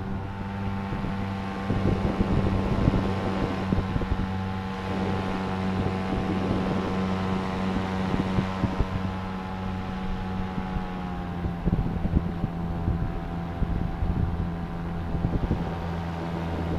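Minari Stratos two-stroke boxer-twin paramotor engine driving its propeller at a steady in-flight cruise, its note easing slightly lower about eleven seconds in. Wind buffets the microphone throughout.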